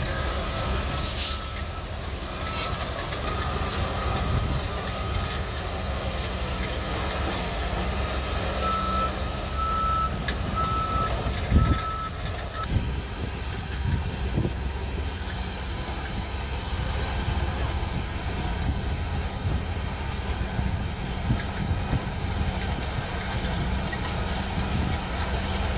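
Shantui DH17C3 Pro bulldozer's diesel engine running steadily while its reversing alarm beeps about once a second, stopping about halfway through. A brief hiss about a second in and a low thump about halfway.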